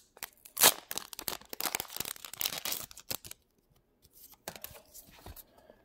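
Foil Pokémon booster pack wrapper crinkling and tearing as it is opened, a rapid run of crackles with one sharper, louder crackle under a second in. About halfway it goes quiet, then a few softer crackles follow.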